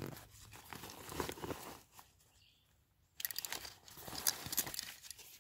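Light rustling and crinkling with scattered small clicks. It breaks off into a second of dead silence and then comes back as denser crackling.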